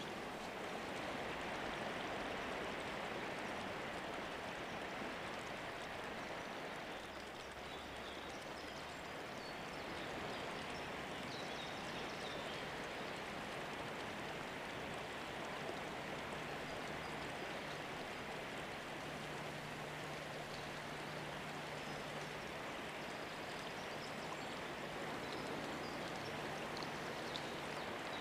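Steady rush of flowing river water, with a few faint high chirps.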